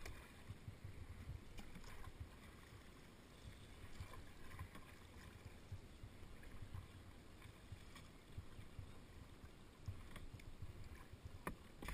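Faint sounds of paddling a canoe on calm river water: soft paddle strokes and water moving against the hull over a low, uneven rumble, with a few light knocks near the end.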